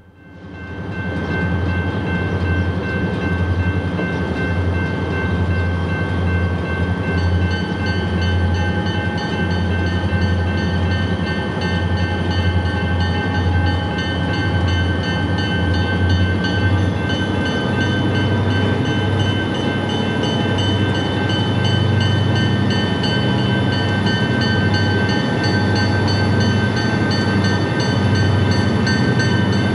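GP40-2 diesel locomotive, with its 16-cylinder turbocharged EMD engine, running as it passes with its freight train. The engine makes a steady low rumble with a steady high whine over it, and the sound swells over the first second or two.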